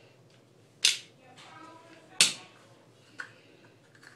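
Two sharp clicks about a second and a half apart, with a fainter one near the end, from makeup containers and tools being handled.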